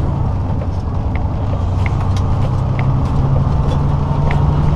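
Semi-truck's diesel engine running on the highway, heard inside the cab as a steady low drone that grows stronger in the second half, with scattered light ticks over it.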